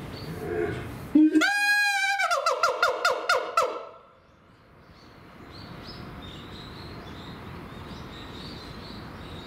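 Siamang calling: a loud, high whooping note about a second in that breaks into a fast run of pulsed notes, about six or seven a second, cutting off about four seconds in. Part of the pair's song, which the uploader takes for a territorial claim.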